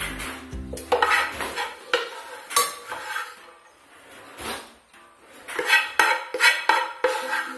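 A serving spoon scraping cooked rice out of a pan and knocking against an aluminium pot as the rice is layered in, in irregular scrapes and sharp clinks that come thickest near the end.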